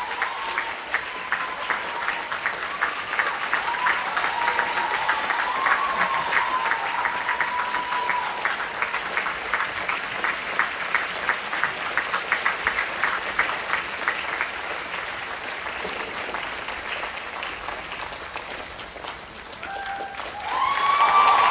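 Theatre audience applauding, the clapping falling into an even beat in unison for a stretch. Near the end the applause swells with cheering voices.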